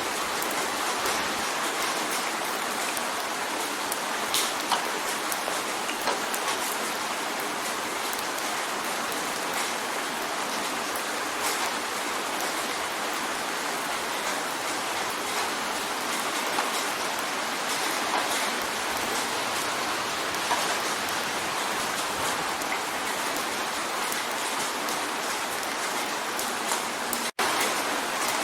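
Steady rain drumming on a window, an even hiss with scattered sharper drop taps. It cuts out for a split second near the end.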